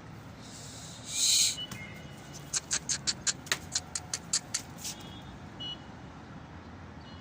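Steady low hum of distant traffic, with a short loud hiss about a second in, then a quick run of about a dozen sharp clicks, roughly five a second.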